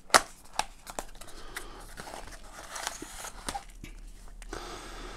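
Hands opening a small cardboard box and sliding a folded paper manual out of it: a sharp click near the start, then scattered light clicks and rustles of cardboard and paper.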